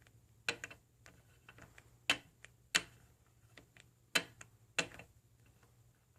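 Light, sharp clicks and taps at uneven intervals, roughly one or two a second: small hard plastic toy figures being handled and set down.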